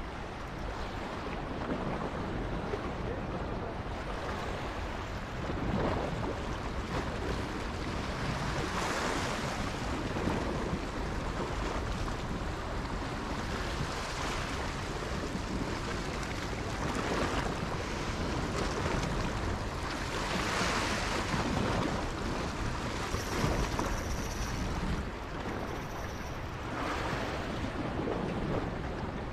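Sea waves washing against the rocks below, swelling every few seconds, with wind on the microphone.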